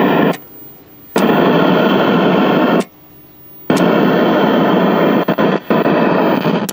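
A 1968 RCA Victor tube TV's loudspeaker giving out loud static hiss that cuts off abruptly twice and comes back each time, with a few brief dropouts near the end. It is the set's sound muting switching in and out.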